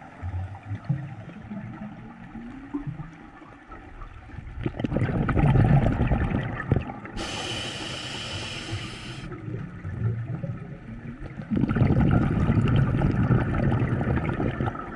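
A scuba diver's breathing underwater: a rumble of exhaled bubbles about five seconds in, a hissing inhalation through the regulator lasting about two seconds, then another long bubbling exhalation near the end.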